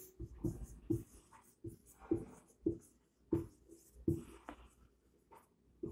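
Marker pen writing on a whiteboard: a quiet string of short, irregular strokes and taps as words are written.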